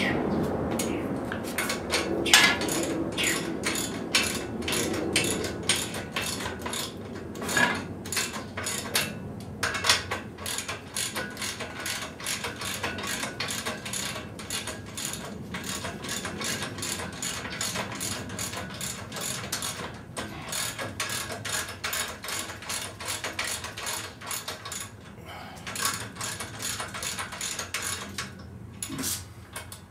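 Hand ratchet wrench clicking in long runs of quick strokes with a few short pauses, as bolts are worked on an engine block.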